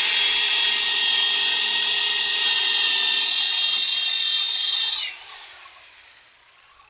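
Corded electric drill running steadily with a 7/16-inch bit, boring pilot holes into the wooden bench top for lag bolts. It makes a steady whine and is switched off about five seconds in, then spins down.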